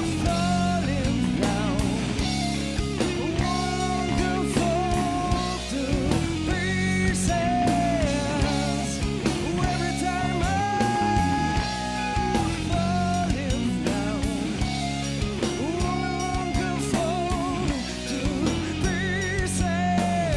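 Live rock band playing a slow rock song: electric guitars, bass and drum kit, with a lead voice singing long, wavering held notes over the band.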